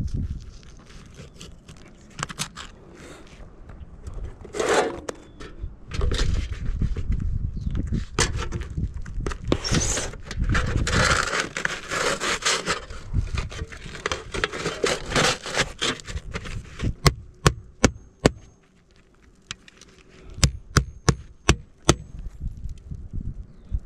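A utility knife scraping and cutting asphalt shingles, and a shingle and rubber pipe boot flashing being slid into place with rubbing and scraping. Near the end a roofing hatchet nails the flashing down: first a few quick light taps, then about six sharp blows.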